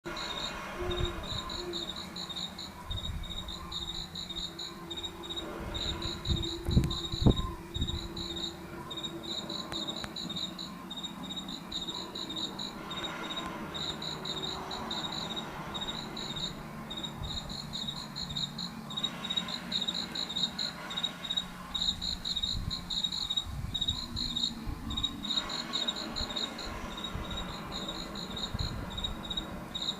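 Crickets chirping in a steady, even pulsing pattern, a night-ambience sound effect played as part of a Halloween display. Low rumble runs beneath, with a few heavy thuds a few seconds in.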